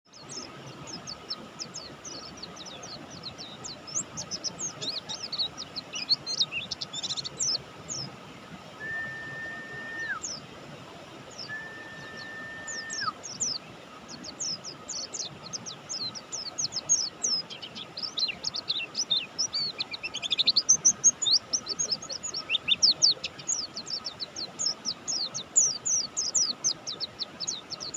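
Buxtoni white-eye (pleci) singing vigorously in rapid, high twittering phrases, with two long level whistles a little before halfway that each drop at the end.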